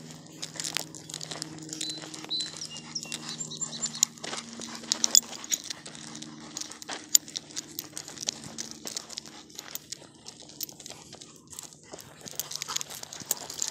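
Rustling and crackling of dogs and footsteps moving through tall grass and brush, with many small sharp crackles. A low steady hum sits underneath for the first half.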